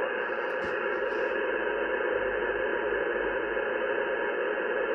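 Steady hiss of static from a Yaesu FT-710 transceiver on 10-meter upper sideband, the audio cut off above about 3 kHz by the receive filter. The station being worked has faded into the band noise.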